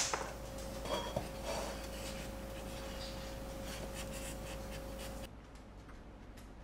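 Faint rustling and scraping as the stiff stem and leaves of a king protea are handled, with a few small scratchy sounds in the first second or two over a faint steady tone. About five seconds in the sound drops to quieter room tone.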